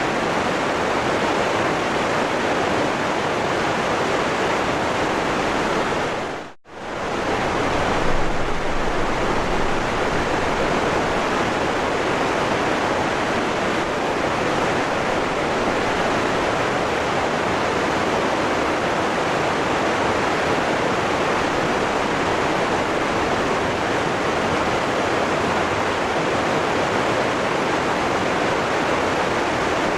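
Waterfall rushing in a steady, even roar of falling water. It dips out briefly about six and a half seconds in and swells back.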